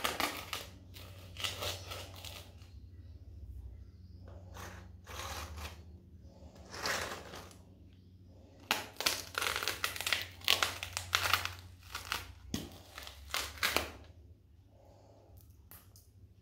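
Small hard pretzels crunching and crackling as cork wedge sandals step down on them, in bursts of crunches with the densest run in the middle and only faint crackles near the end. A low steady hum runs underneath.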